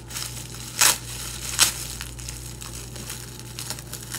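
Plastic bag and bubble wrap crinkling as a tightly wrapped package is pulled open by hand, with two loud sharp crackles a little under a second apart near the start.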